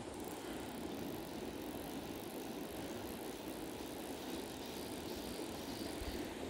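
River current rushing steadily over rocks, an even, unbroken noise.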